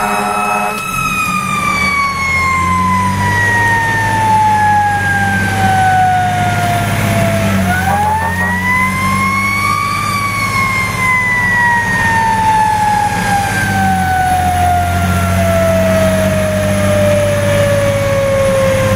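A fire engine's mechanical siren, heard from inside the cab, winding down slowly. It is wound back up once about halfway through and then winds down again. The fire truck's engine runs steadily underneath, and a horn sounding at the start stops about a second in.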